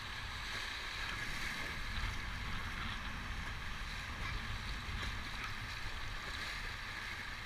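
River water rushing over shallow rapids around a raft, a steady hiss, with wind buffeting the microphone underneath.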